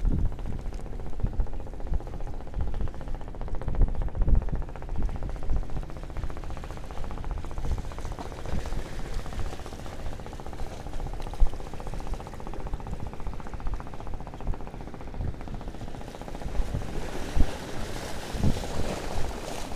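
Wind buffeting the microphone in an uneven low rumble, with waves washing against the shore rocks. Near the end a wave splashes over the rocks in a louder hiss.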